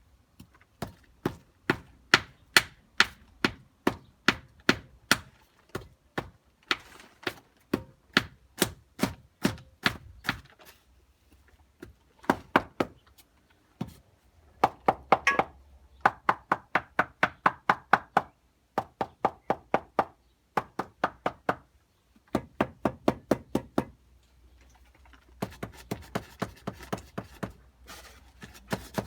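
The side of a concrete formwork shutter being struck over and over, knocking about two to three times a second in runs of several seconds with short pauses. The pounding settles the fresh concrete against the shutter to keep out voids and honeycombing.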